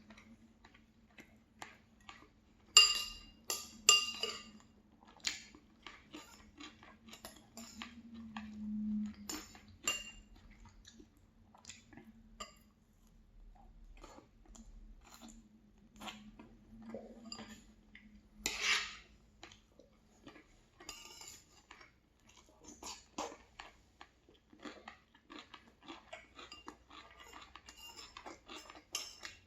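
Close-up eating: chewing with cutlery clicking and scraping on a plate, including two ringing clinks a few seconds in.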